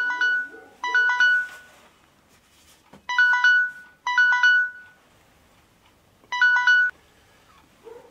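Mobile phone sounding a short electronic melody of quick beeping notes that ends on a held tone, repeated five times with pauses between.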